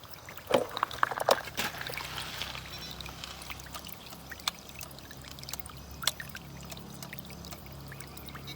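Water splashing and trickling around a radio-controlled excavator working in a river, with scattered sharp clicks, most of them in the first second and a half, over a faint steady low hum.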